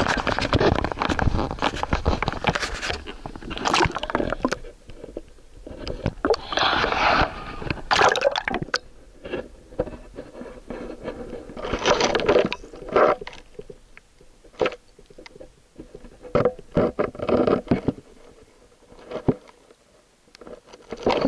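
Handling noise from a camera held under the lake water: irregular scraping, knocking and muffled water noise in uneven bursts, quieter between them.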